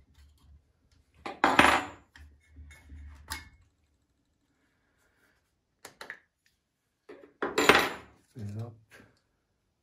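Plastic clicks and clatter of a Husqvarna 435 II chainsaw's air filter cover and filter being taken off and handled. There are two louder bursts of rattling, one about a second and a half in and one near the end.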